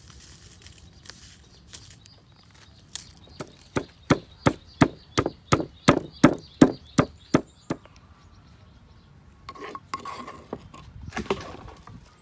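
Wooden pestle pounding in a wooden mortar, crushing red chilies with sugar: about fourteen quick, even thuds at around three a second, then it stops.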